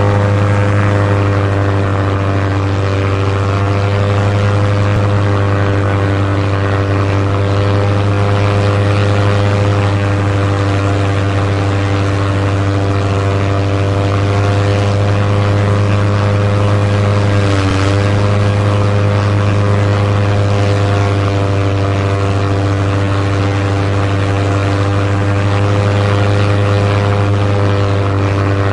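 Propeller airplane engine droning steadily at constant power, with a brief dip in pitch about eighteen seconds in.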